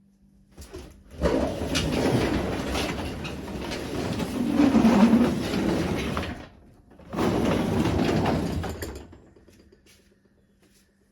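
Wooden garage door pulled down by hand, rumbling as it rolls along its tracks: one long run of about five seconds, a short pause, then a second run of about two seconds.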